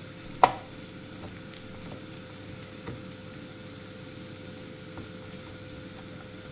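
Pot of rice and vermicelli cooking on the stove with a low, steady sizzle, and one sharp metallic clink about half a second in.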